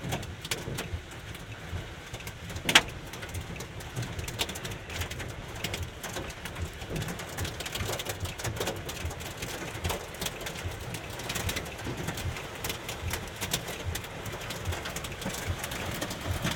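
Hail and heavy rain heard from inside a car: a steady rain hiss with scattered sharp clicks of hailstones bouncing off the hood, one louder hit about three seconds in.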